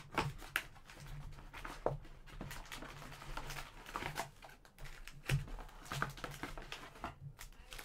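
Trading card packs and their cardboard box being handled: a run of small, irregular rustles, crinkles and taps.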